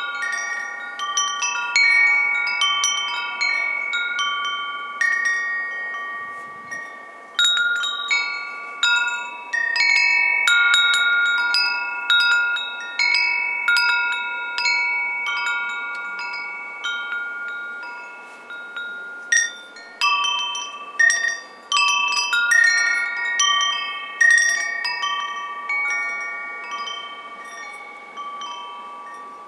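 Wind chimes ringing: clusters of high, clear metallic notes of several pitches, struck at uneven times, each ringing on and overlapping the others. They thin out and grow quieter over the last few seconds.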